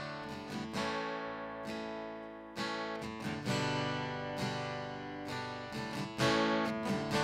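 Acoustic guitar strumming chords as the instrumental intro to a worship song, the strums uneven and the strongest about six seconds in.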